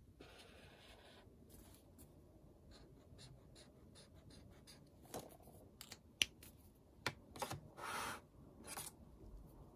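Stabilo Boss highlighter tip scratching across notebook paper, then several sharp plastic clicks and short rustles as the highlighter is handled and set back among the others in the plastic stand.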